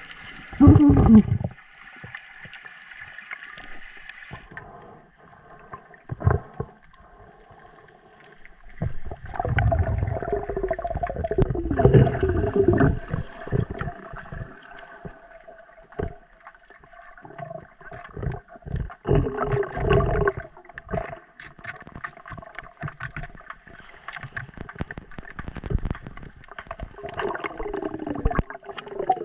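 Water gurgling and sloshing around an underwater camera, coming in surges several seconds apart over a faint steady tone.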